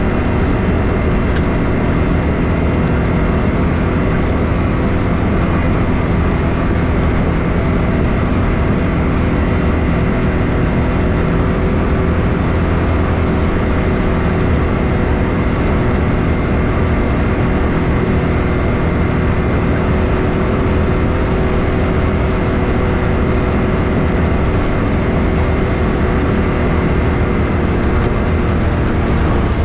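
Can-Am Maverick X3 side-by-side running steadily at an even speed along a dirt trail, its turbocharged three-cylinder engine holding one pitch over a constant rumble of tyres and chassis.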